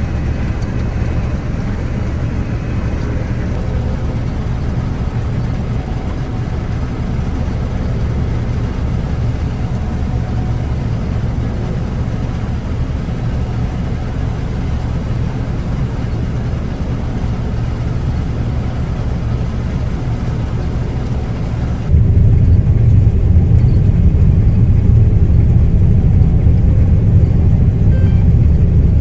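Combine harvester running steadily while cutting soybeans, a constant low engine drone. About 22 seconds in, the sound switches abruptly to a louder, deeper rumble with the higher sounds gone.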